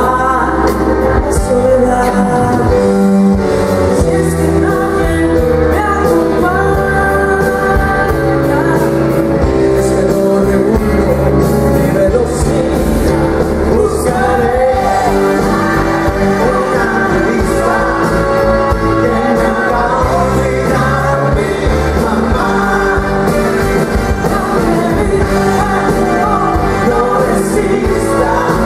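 Live pop-rock song: a woman sings lead over a band with electric guitars and keyboard, with a choir on stage behind her.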